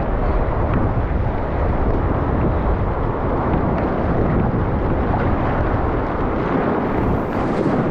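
Steady roar of big whitewater rapids running at about 250 cubic metres a second, deep and even throughout.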